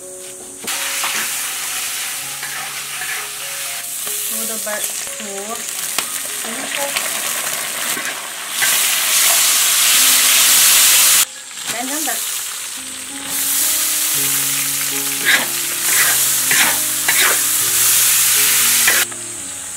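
Sliced pork, chillies and dried green beans stir-frying in a hot wok: loud sizzling with the spatula scraping and tossing the food. The sizzle cuts out briefly about eleven seconds in, then returns until just before the end.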